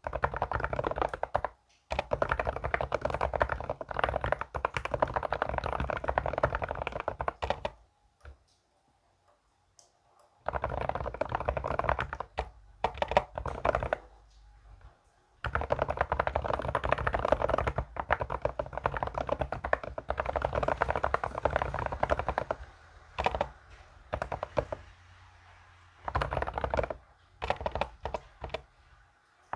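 Fast typing on a computer keyboard, dense keystrokes in runs of several seconds with short pauses between them.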